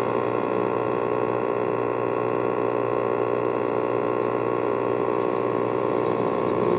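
Steady hiss of band noise from an HF amateur radio transceiver's speaker while receiving, with no station talking.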